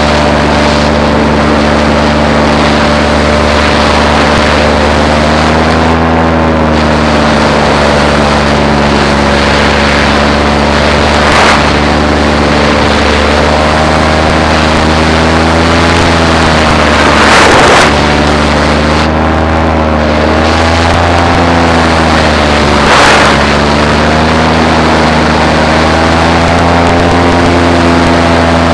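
Paramotor engine and propeller running steadily in flight, its pitch wavering gently up and down. There are three brief rushes of noise, the loudest about two-thirds of the way through.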